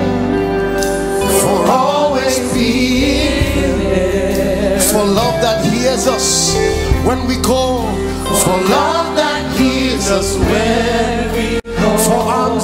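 Live gospel worship music: a woman leads the singing, backed by a choir and a band. The sound cuts out for an instant about a second before the end.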